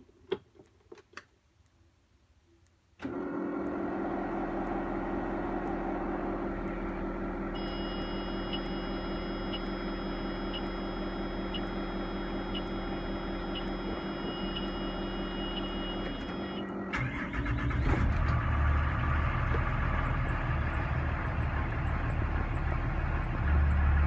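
School bus ignition switched on: a few clicks, then a steady electrical hum, with a high electronic warning tone sounding for about nine seconds. About three-quarters of the way through, the Cummins ISB 6.7 inline-six turbo-diesel cranks briefly, catches, and settles into a steady, louder idle.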